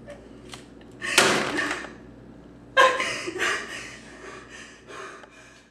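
A woman sobbing hard: a sharp gasping sob about a second in, then a louder, sudden wail near three seconds that breaks into shorter sobs and fades.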